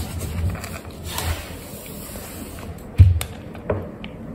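Kitten eating dry kibble from a raised bowl: soft crunching and small clicks of kibble and paw against the bowl, with one sharp knock about three seconds in.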